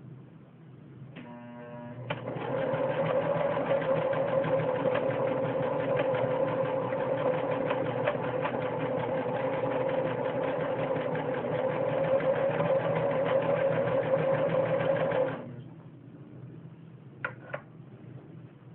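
Singer 6012C sewing machine stitching fabric: it starts up about a second in, runs steadily at speed with a motor hum and rapid needle clatter, then stops abruptly about fifteen seconds in. A couple of short clicks follow near the end.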